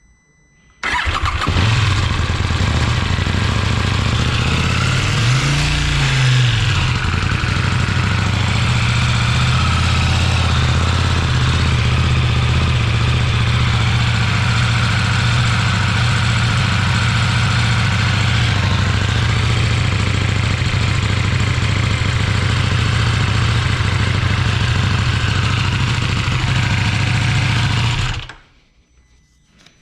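2020 KTM 790 Duke's parallel-twin engine starting about a second in and idling, with one brief rev around five seconds, then idling steadily until it is switched off near the end.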